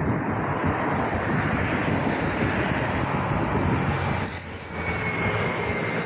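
MRT train passing on an elevated viaduct overhead: a loud, steady rush and rumble that drops away about four seconds in, leaving quieter road traffic with a thin high whine.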